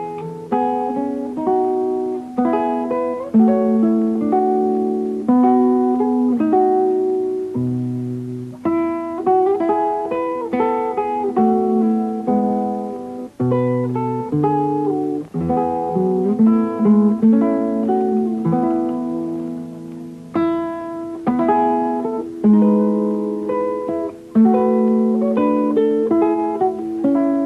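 Acoustic guitar music: a tune of plucked notes and strummed chords, each struck sharply and ringing away, changing about every second.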